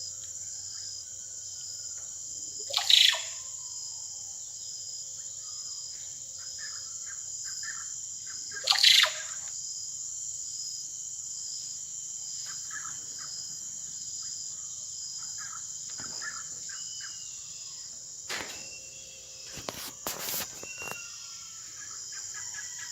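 Oropendola (japó) singing: two loud, sudden calls that slide down in pitch about 3 and 9 seconds in, with softer calls near the end, over a steady high-pitched drone of insects.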